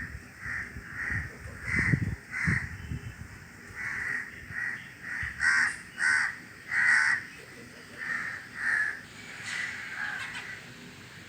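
Crows cawing over and over, a long run of short harsh caws at about two a second, loudest in the middle. Wind buffets the microphone with low rumbles in the first couple of seconds.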